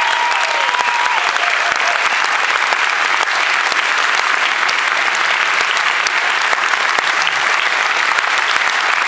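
Audience applauding steadily at the end of a song, with a held note that stops about a second in.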